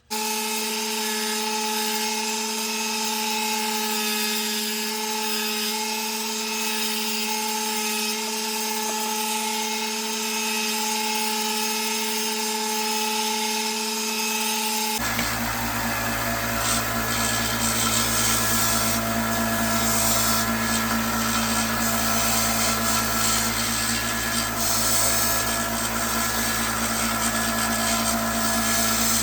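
Electric power tool running steadily while shaping a small walnut wedge, with a constant motor hum. About halfway through, the sound changes abruptly and a deeper rumble joins in.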